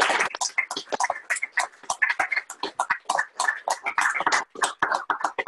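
Several people clapping in quick, overlapping, uneven claps, heard over a video call.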